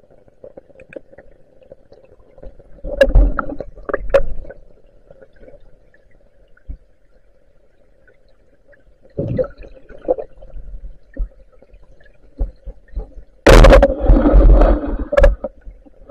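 Muffled underwater sound under a steady low drone, with gurgles and knocks and bumps from a swimmer moving in the water. The knocks come in clusters about three seconds in, about nine seconds in and, loudest, near the end.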